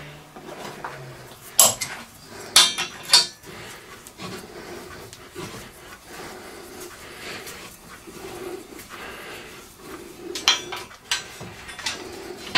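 Metal clinks and knocks of a steel spanner working the nut on a trolley wheel's threaded stud against the steel box-section frame. Three sharp clinks come between about one and a half and three seconds in, and a quick run of them comes near the end.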